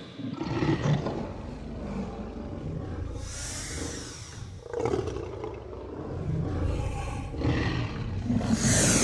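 Dinosaur (T. rex) growl sound effect: a deep, rough, continuous growl that swells several times, with breathy hissing on some of the swells and a louder roar building near the end.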